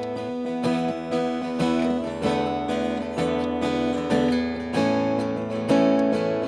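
Acoustic guitar strumming chords in a steady rhythm, the opening of a song.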